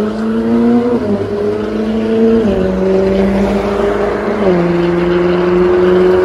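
Ferrari 458 Italia's flat-plane-crank V8 through an Fi valvetronic exhaust, accelerating through the gears. The engine note climbs slowly, then drops in pitch with an upshift about a second in, about two and a half seconds in, and about four and a half seconds in.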